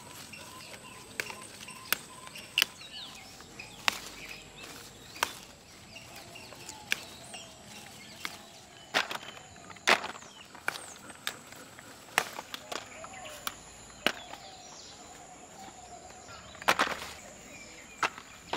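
Sharp snaps of chili pepper stems breaking as the peppers are picked by hand, about a dozen at irregular intervals, a few louder than the rest. Behind them runs a steady high insect drone with soft bird calls.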